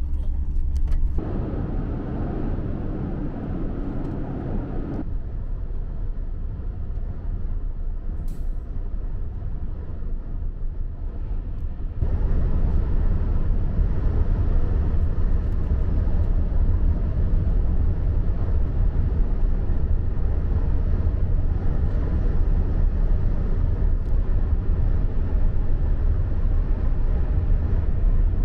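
Cabin noise of a TGV inOui high-speed train running at about 310 km/h: a steady low rumble with a rushing hiss over it, getting louder partway through.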